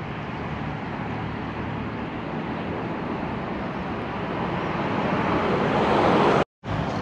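Steady outdoor background noise with a low hum, swelling gradually and then cutting off abruptly near the end.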